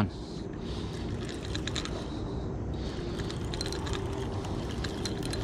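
Spinning reel being cranked to bring in a hooked fish, with faint clicks over a low steady rumble.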